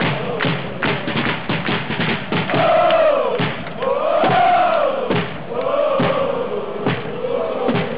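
Football supporters' section beating large bass drums and clapping, with rapid drum strokes in the first couple of seconds. After that comes a crowd chant sung in unison in long rising-and-falling phrases, the drum beats carrying on under it.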